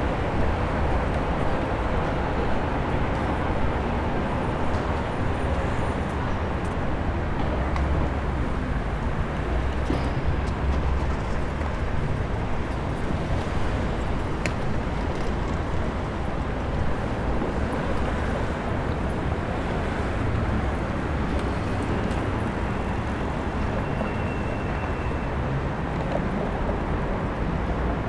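Steady city street ambience, mostly a low traffic rumble from cars on a busy square.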